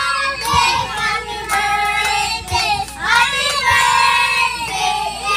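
A child's high singing voice carrying a song in long held notes that glide between pitches, with a soft low thump about once a second underneath.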